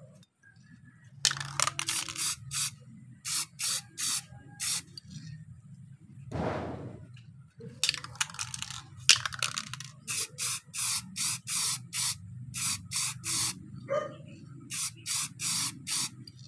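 Aerosol spray-paint can giving many short hissing bursts in quick groups of three to six, laying a black top coat onto a mountain bike brake lever.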